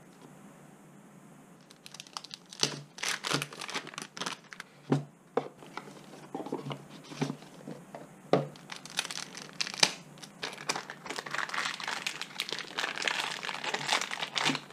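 Packaging being crinkled and torn open during a speed-cube unboxing. It starts about two seconds in as irregular crackles and rustles, growing denser and more continuous toward the end.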